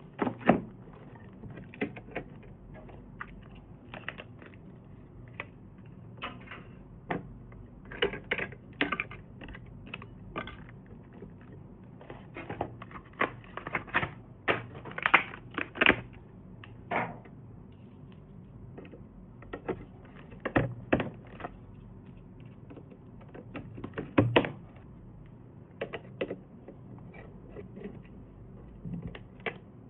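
Irregular clicks, taps and knocks of hard computer parts and packaging being handled, some singly and some in quick clusters.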